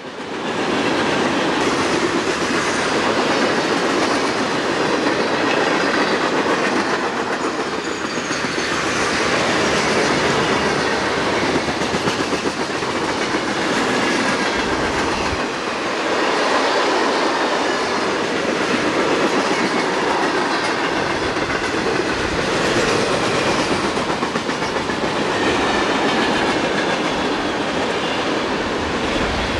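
Freight train rolling past: a steady rumble and clatter of steel wheels on the rails that swells and eases slightly as the cars go by.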